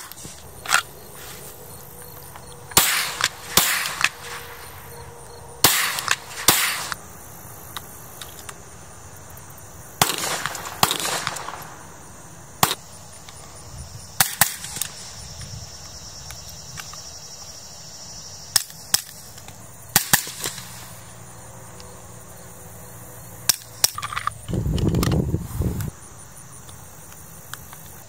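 Suppressed gunshots from a pistol and an AR-style carbine, fired as single shots and quick strings of two or three, about a dozen bursts spread through. Near the end a low rumble lasting about two seconds.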